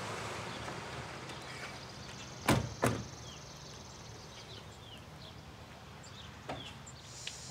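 Two car doors shut about half a second apart, a couple of seconds in, over quiet outdoor background.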